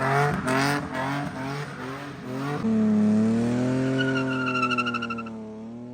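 Car engine revving hard, its pitch jumping up and down quickly at first, then held in one long note that slowly rises and falls, as in drifting. A high tyre squeal joins over it for about a second in the middle.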